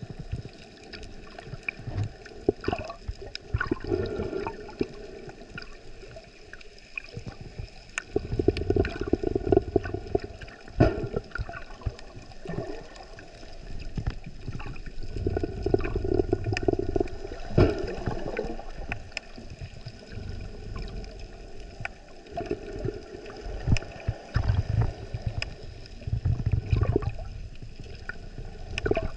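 Water gurgling and sloshing close to the microphone, swelling in surges every few seconds, with scattered sharp clicks and crackles.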